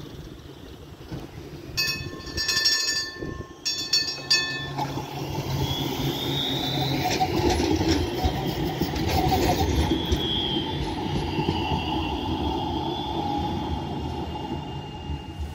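A Rotterdam tram sounds two quick bursts of its warning bell, then rolls past on its rails, its wheels squealing now and then.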